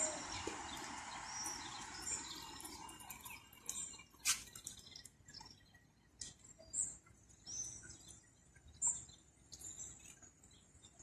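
Birds chirping, short high calls scattered throughout, over a steady noise that fades away over the first four seconds. A sharp click about four seconds in.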